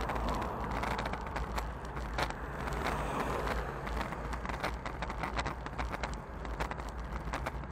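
Wind rushing over a bicycle-mounted action camera while riding, with frequent small clicks and rattles from the road. A small box truck overtakes, its engine and tyre noise swelling and fading about three seconds in.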